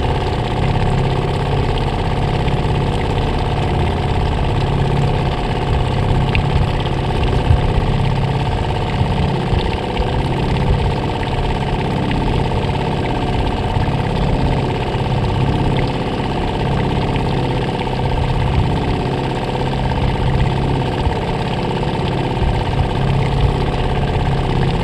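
Small boat motor running steadily, an even hum that holds the same pitch throughout.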